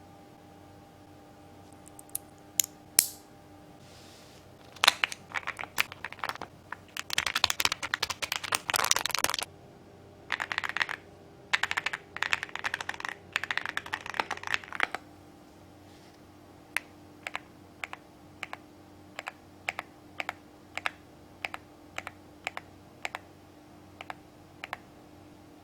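Mechanical keyboard with TTC Dragon switches being typed on: a few single key presses, then fast runs of typing for about ten seconds, then separate keystrokes at about two a second.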